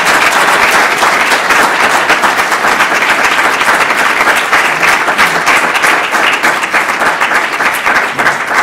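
Audience applauding loudly.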